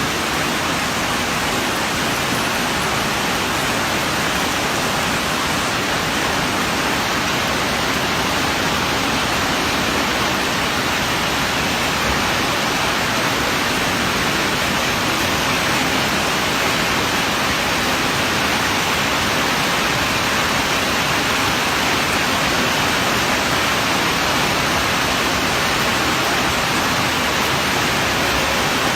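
Steady roar of rushing water, an even hiss with no breaks or changes.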